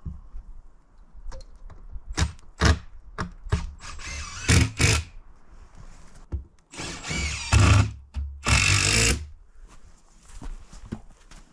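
Cordless drill driving screws into the wooden table's legs in three short whirring bursts, after a few sharp knocks of wood being handled.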